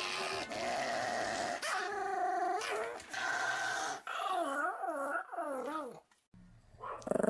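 Pomeranian growling and whining, its voice wavering up and down in pitch through a run of short rises and falls past the middle, then breaking off briefly near the end.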